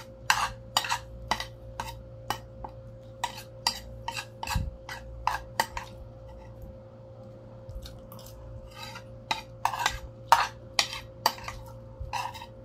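Metal spoon and fork scraping and clinking against a ceramic plate while scooping up the last noodles: a quick run of sharp clicks, some ringing briefly, with a lull in the middle.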